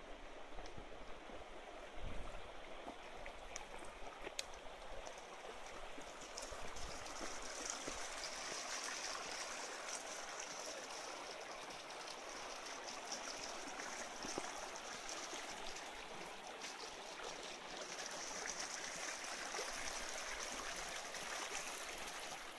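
Shallow mountain stream running over stones, a steady babble of water, with a few faint knocks early on.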